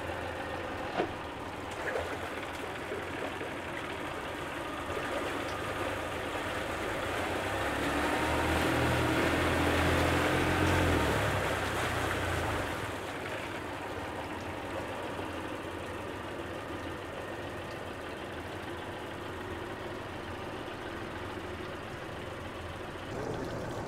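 Honda 40 three-cylinder four-stroke outboard running with its cowling off, being run in after an overhaul. Its revs climb from about six seconds in, with the propeller churning the tank water, then drop back to a steady idle about thirteen seconds in.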